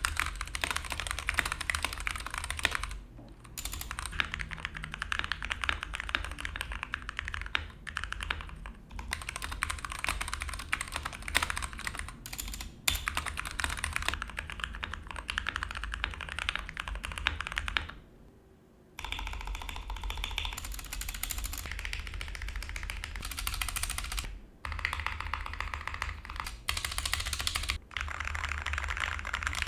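Continuous typing on a Gamakay K61 mechanical keyboard with Gateron Brown tactile switches and HyperX Pudding keycaps: rapid key clicks with short pauses, including about a second's break roughly two-thirds of the way through.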